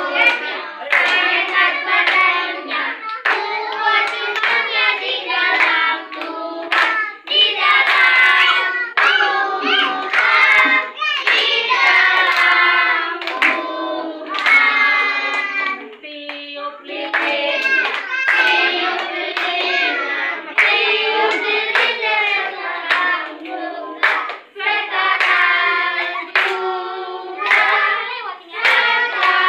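Group of children and adults singing a birthday song together, with hand clapping throughout.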